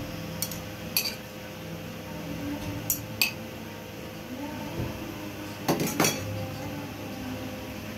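Metal kitchen tongs clinking as onion rings are laid on a ceramic plate: three pairs of short, sharp clicks, over a steady hum.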